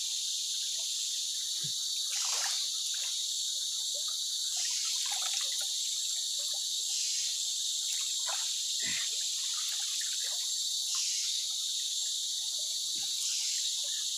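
Steady, high-pitched chorus of forest insects, the loudest sound throughout, with soft splashes and trickles of water as hands scoop from a shallow stream.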